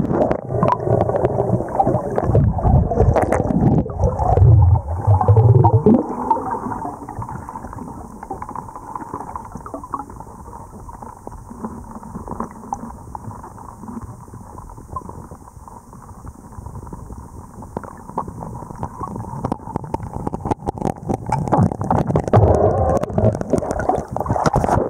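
Muffled water noise heard through an underwater camera housing: low rumbling and sloshing for the first few seconds, then a quieter steady wash, growing louder and choppier again near the end as the camera reaches the wavy surface.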